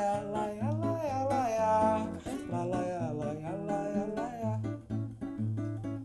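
A singer holds a wordless 'la la la' melody over a strummed and plucked acoustic guitar. The voice stops about four and a half seconds in while the guitar plays on.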